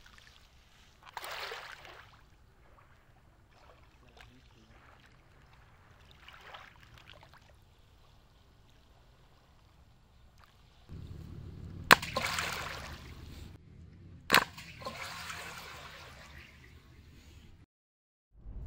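Water sloshing and splashing at a shoreline: soft lapping swells in the first half, then two sharp splashes a couple of seconds apart over a low steady rumble that starts about halfway.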